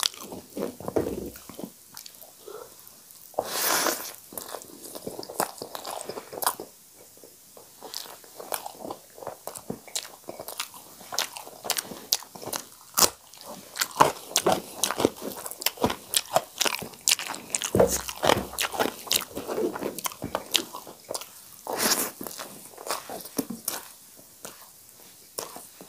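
Close-miked eating by hand: wet chewing of mouthfuls of rice mixed with sag (cooked greens), full of sharp mouth clicks. Two louder rushing noises come about 4 seconds in and again near 22 seconds.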